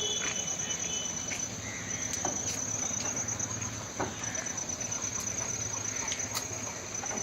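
Crickets trilling steadily in one high, finely pulsed tone, with a few short, sharp chirps or clicks scattered through it.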